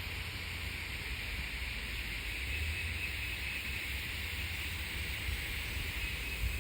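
A long, steady inhale through a STIIIZY vape pen, an airy hiss held for several seconds over a low rumble. It is a "blinker", a hit drawn until the pen's light blinks.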